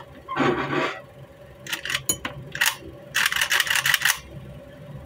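Metal scraping and clicking from the action of an AK-pattern rifle worked by hand to test its newly made ejector: a short rasp, a few sharp clicks about two seconds in, then a longer scrape of about a second.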